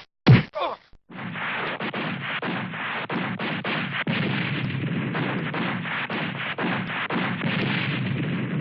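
Battle sound effect: a couple of short sounds in the first second, then a continuous, dense din of gunfire and blasts with many sharp cracks.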